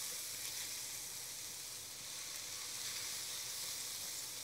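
Onions, mushrooms and garlic sizzling steadily in a hot frying pan.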